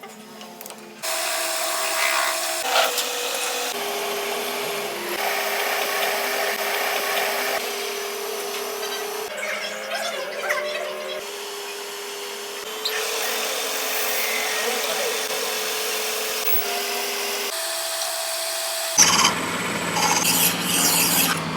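Workshop machine tools running and cutting metal: a steady motor hum under a rough cutting noise, shifting in pitch at abrupt cuts every few seconds. Near the end a lower hum comes in with quick scraping.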